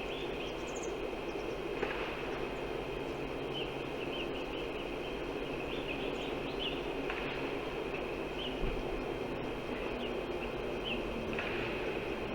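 Steady wind noise outdoors, with small birds chirping briefly again and again over it.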